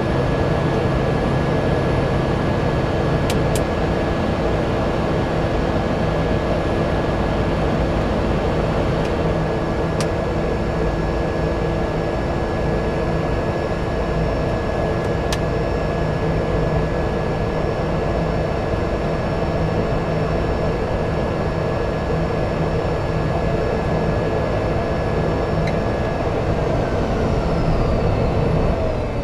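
Cessna Caravan seaplane's Pratt & Whitney PT6A turboprop engine and propeller running steadily at low power while taxiing on the water, heard inside the cockpit as a constant drone with a high steady whine. Near the end the tones slide down in pitch as the engine winds down.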